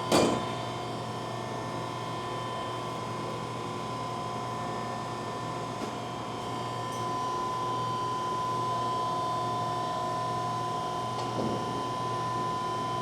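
Hydraulic pump and 10 HP electric motor of a vertical cardboard baler running steadily as the platen travels down, a constant hum with a steady whine. There is a brief clank just after the start.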